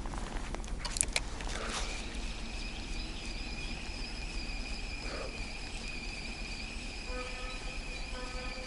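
A steady, high-pitched insect trill, typical of a cricket or grasshopper, sets in about two seconds in and holds unbroken. A few sharp clicks come around the first second, and a lower buzzing tone joins near the end.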